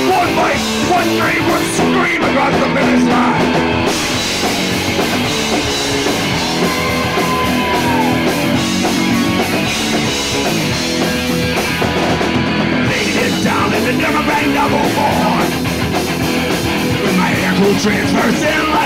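Live punk rock band playing a song loudly, with electric guitars and a drum kit.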